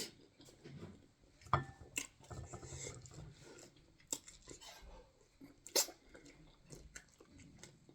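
Close-up chewing and wet mouth sounds of a person eating fufu, with a few sharp smacks; the strongest come about one and a half seconds in and near six seconds.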